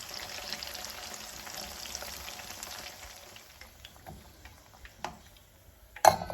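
Breadfruit chunks frying in hot oil in a pan, a dense crackling sizzle that dies down after about three seconds. A few sharp knocks follow, the loudest near the end.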